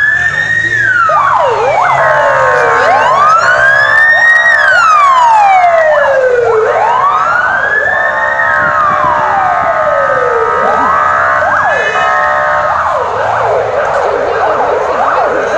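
Emergency vehicle siren wailing, its pitch rising over about a second and falling over about two, repeating every four seconds. From about twelve seconds in, a faster warbling siren overlaps it.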